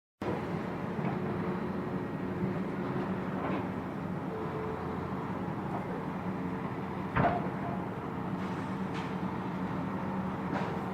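A train running past with a steady hum, and a single sharp clank about seven seconds in.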